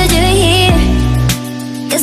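Background pop music: a wavering sung or lead melody over steady bass and a beat, the bass dropping out briefly about one and a half seconds in.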